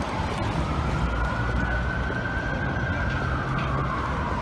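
Police siren wailing, its pitch rising and falling slowly, about one swing every four seconds, over the rumble of passing car traffic.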